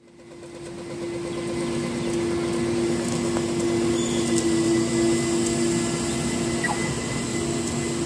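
Street traffic noise: a steady low engine hum under a broad rush, fading in over the first second, with a couple of faint brief falling squeals later on.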